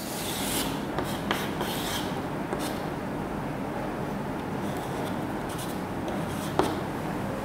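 Chalk scraping on a chalkboard as a large circle and small marks are drawn, with a sharp tap of the chalk about a second in and another near the end.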